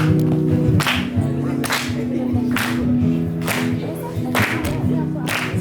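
Band music, the intro of a rock song: sustained chords over a steady beat, with a sharp percussive hit about once a second.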